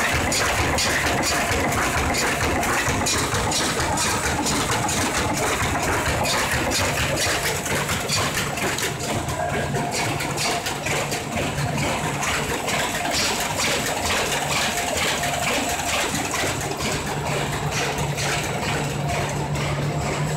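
A 1450 folder gluer for lock-bottom boxes running at production speed: a steady low machine hum with a fast, even clatter as carton blanks feed through its belts and folding sections.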